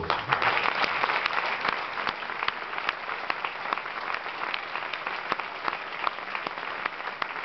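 A crowd applauding, starting suddenly and easing off slightly after the first second.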